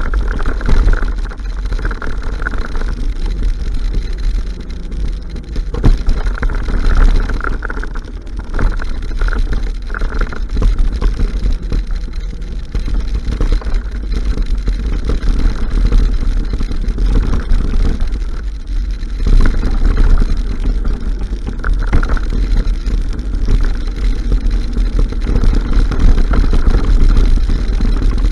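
Wind buffeting the microphone over the rumble and rattle of a mountain bike riding fast over a dirt forest trail, with many small knocks from bumps in the track.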